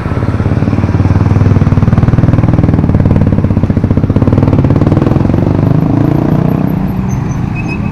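Motorcycle and scooter engines passing close by in street traffic, loud, growing louder over the first second or two and easing off near the end.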